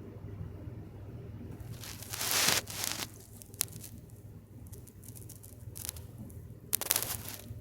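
Scuffling rustle from a pet house sparrow moving about, in two bursts: one about two seconds in and one near the end, with a couple of single sharp taps between them. No chirping.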